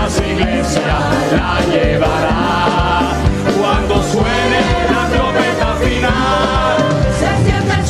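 Live worship music: a small group of singers sings a Spanish-language Pentecostal chorus (coro) in unison over steady instrumental backing.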